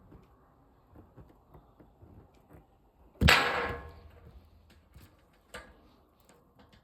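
A balloon popping once: a single sharp bang a little after three seconds in, with a short fading tail. Faint small clicks and rustles come before and after it, with one stronger click a couple of seconds later.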